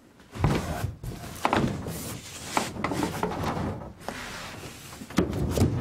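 Irregular knocking and rubbing against wood as someone shifts and moves about, with several sharp knocks and a louder flurry near the end.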